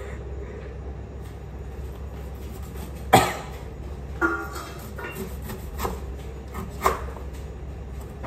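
A large kitchen knife chopping through young jackfruit on a board: a few sharp knocks, the loudest about three seconds in, over a steady low hum.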